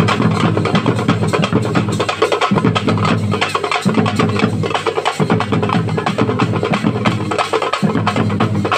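A troupe of thappu (parai) frame drums beaten together in a fast, dense rhythm, the low ring of the drumheads sounding under the sharp strokes.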